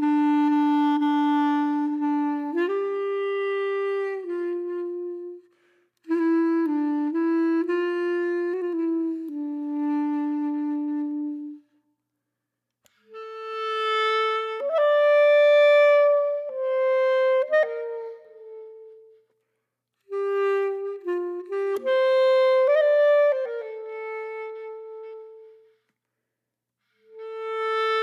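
Background music: a solo woodwind melody, clarinet-like, played in short phrases of a few seconds each with brief silences between them.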